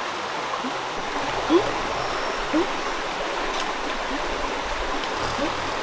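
Steady rushing of a forest stream, with a short, low rising call repeating about once a second over it.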